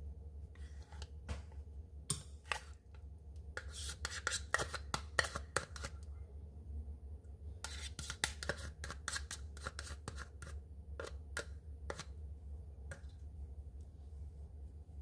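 A spoon scraping a thick creamy dairy product out of small plastic cups and knocking against a glass jar, in clusters of quick clicks and scrapes over a low steady hum.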